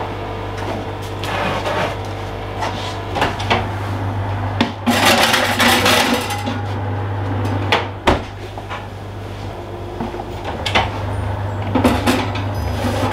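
A metal baking tray scraping and clattering as it is slid onto an oven rack, loudest about five seconds in. Scattered knocks and clicks from the oven door and tray come before and after, over a steady low hum.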